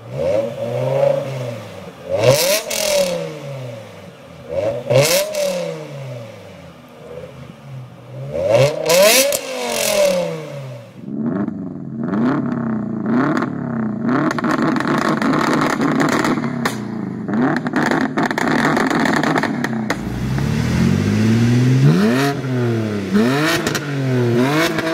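Three cars revved in turn at the exhaust. First, a BMW M5 E60's V10 blipped three times, each rev rising and dropping back. Then a Subaru Impreza WRX STi GC8's turbo flat-four revving rapidly with antilag crackle and pops, and from about twenty seconds in a BMW 328i E90's straight-six revving through a full Eisenmann exhaust.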